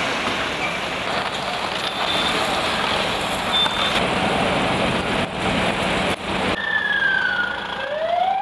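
Steady street noise of passing trucks and traffic at a roadworks site. About six and a half seconds in the sound changes abruptly and an emergency-vehicle siren starts wailing, its pitch gliding down and then climbing.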